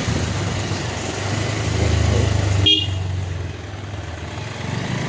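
Motorcycle engine running under way, building briefly and then easing off, with one short horn toot about two and a half seconds in.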